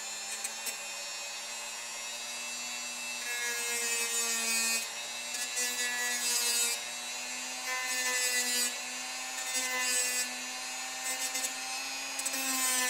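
Tacklife rotary tool with a sanding drum running at a steady whine while a small ABS plastic tab is ground against it. A gritty rasp comes in about five separate passes each time the drum bites the plastic.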